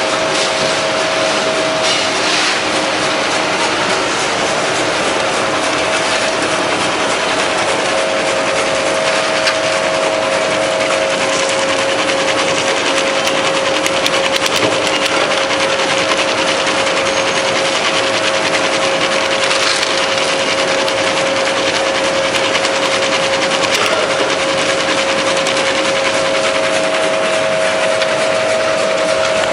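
Pistachio slicing machine running steadily while it slices pistachio kernels: a dense, even cutting and rasping noise over a constant motor whine.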